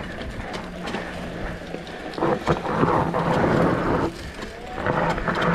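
Mountain bike riding down a dry dirt trail: tyres rolling and skidding over dirt and stones, with many small knocks and rattles from the bike. The rough rumbling noise swells in two louder stretches, about two seconds in and near the end.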